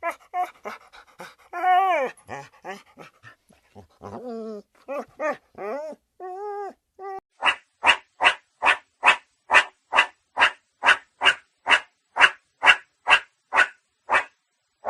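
A dog whining and yelping in short, pitched cries that bend up and down, then barking steadily about halfway through, two to three barks a second, until shortly before the end.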